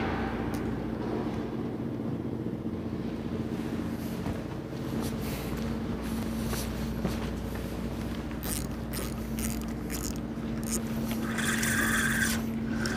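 A steady low engine hum. A few scattered clicks come in the later part, and near the end there is a short burst of higher hissing noise lasting about a second.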